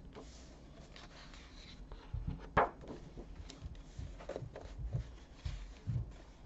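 Thick paper pages of a colouring book rustling as a hand smooths them flat and turns them over, with soft thumps as the pages settle. A sharp page swish about two and a half seconds in is the loudest sound.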